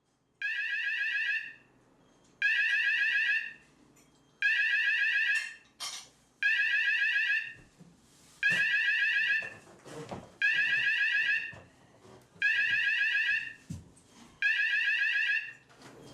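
Fire alarm sounding a repeated warbling beep, eight times, each about one second on and one second off. A few faint knocks fall between the beeps.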